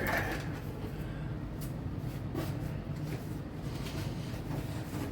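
An Athearn HO scale model locomotive running on the track: a steady low electric-motor hum with a few faint clicks.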